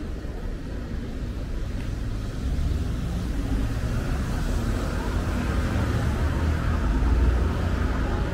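Street traffic: a motor vehicle's engine rumble and tyre noise grow louder over the last few seconds.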